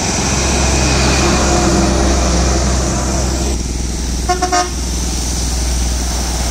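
Heavy trucks approaching on a wet road, with a steady low engine rumble and tyre hiss. A brief vehicle horn toot, in a few quick pulses, sounds about four seconds in.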